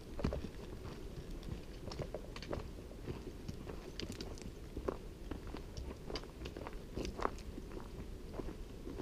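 Hikers' boots and trekking poles on a rocky dirt trail: irregular crunching footsteps and sharp clicks and scrapes.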